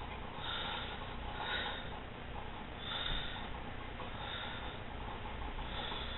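A person breathing close to the microphone: five soft breaths or sniffs about a second apart, over a steady hiss and a low hum.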